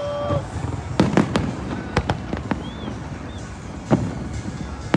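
Aerial fireworks bursting: sharp bangs in a quick cluster about a second in, then single bangs around two seconds and near four seconds, over a steady wash of distant rumbling and crackle.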